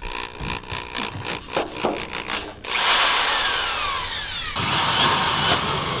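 Cordless drill running a long drill bit freely in the air. Handling clicks and rattles come first; about three seconds in, the motor starts whirring with a whine that slides down in pitch.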